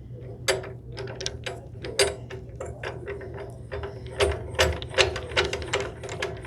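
Ratchet wrench clicking as a bolt or nut is tightened, in short irregular strokes that come faster in the second half.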